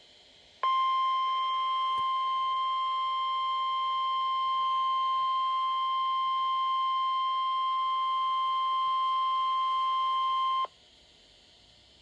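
NOAA Weather Radio 1050 Hz warning alarm tone coming from a weather radio receiver's speaker: one steady, high, pure beep that starts just under a second in, holds for about ten seconds and cuts off sharply. It signals a warning-level alert, here the coastal flood warning that follows.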